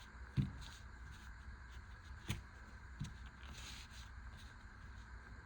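Quiet handling of small tools and gear: a soft knock about half a second in, a sharper click a little after two seconds and another soft knock about a second later, over a faint steady hum.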